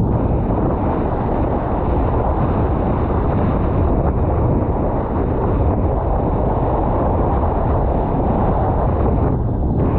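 Strong wind buffeting an action camera's microphone: a loud, steady rumble.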